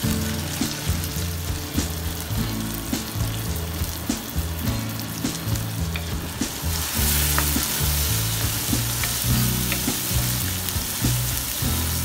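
Boiled yellow peas sizzling in hot oil in a wok, the sizzle growing louder about seven seconds in, with a wooden spatula stirring them near the end. Soft background music with low bass notes plays underneath.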